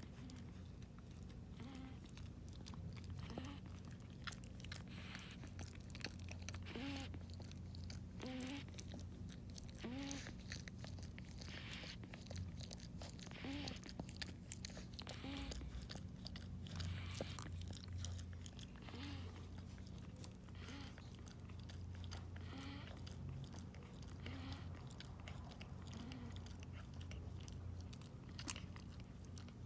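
Maltese-Shih Tzu cross (Malshi) puppy snoring softly in its sleep, one breath every one and a half to two seconds, some with a faint whistle, over a steady low hum.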